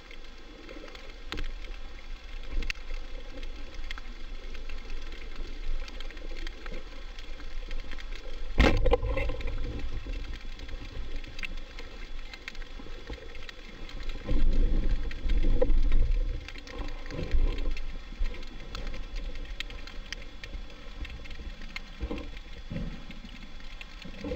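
Underwater ambience with steady fine crackling. A sharp crack about eight and a half seconds in is a speargun firing its shaft. It is followed by low rumbling water movement, loudest a few seconds later.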